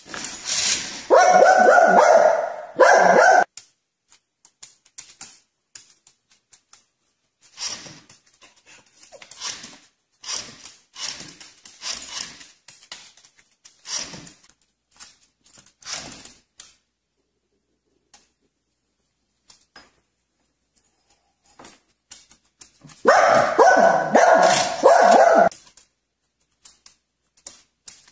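Small white dog barking at a remote-control toy car in two loud bouts of quick barks, one lasting about three seconds at the start and another about twenty-three seconds in, with softer short sounds scattered between them.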